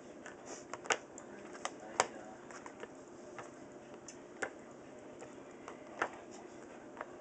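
Irregular light clicks and taps as a kitten chews and bats at a small toy, about a dozen sharp ticks spread unevenly, the strongest about a second and two seconds in and again near six seconds.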